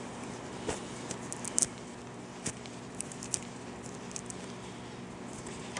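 Handling noise from fingers working wires and a camera held right at the microphone: scattered small clicks and rustles, the loudest about a second and a half in, over a faint steady hum.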